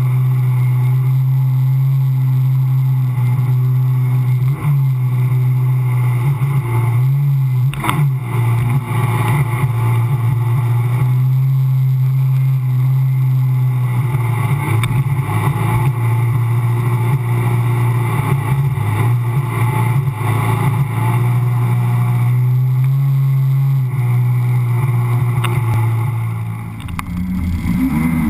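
Sea-Doo personal watercraft engine running steadily at speed, a constant drone mixed with the rush of water spray over the hull. About two seconds before the end the engine eases off briefly and its pitch changes.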